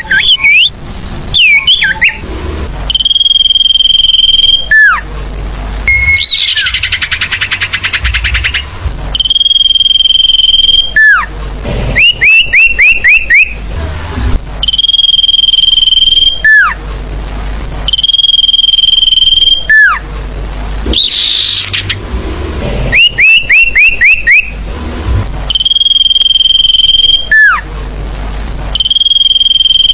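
Sirfu birdsong lure (pikat) recording repeating its phrase. A long, steady, high whistle of about a second and a half ends in a falling slur. It alternates with quick runs of four or five short chirps, and a buzzy trill comes about seven seconds in.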